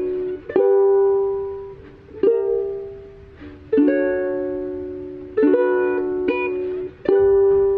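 Music: plucked-string chords, each struck sharply and left to ring out, played about every one and a half seconds.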